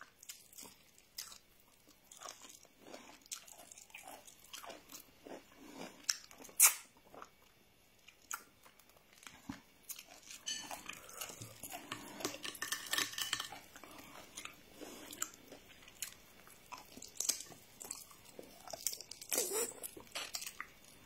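Close-up eating sounds: a piece of chicken on the bone being bitten, gnawed and chewed, with repeated small crunches and wet mouth sounds. One sharp crunch stands out about six and a half seconds in.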